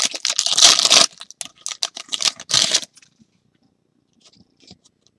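Trading card pack wrapper being torn open and crinkled in the hands, a loud rustle for about a second, then a few shorter crinkles that stop about three seconds in.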